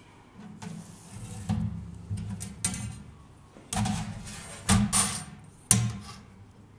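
A galvanised steel sheet and a steel rule being slid, turned and set down on a steel-topped bench: a run of scrapes and sharp metallic clanks, some ringing briefly, the sharpest knock near the end.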